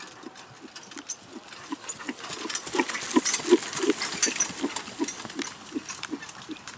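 A horse trotting as it pulls a light four-wheeled driving carriage: a steady dull beat about three times a second in time with the trot. Rattling and clinking from the carriage and harness are loudest about halfway through, as it passes close by.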